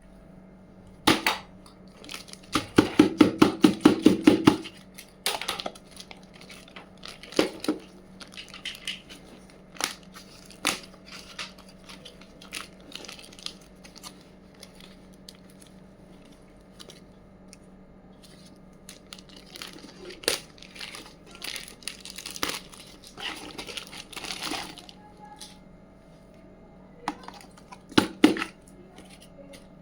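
Toy packaging being unboxed: plastic and paper crinkling and tearing, with scattered sharp clicks of small plastic pieces being handled. A fast run of clicks and ripping sounds comes about three seconds in. A faint steady hum sits underneath.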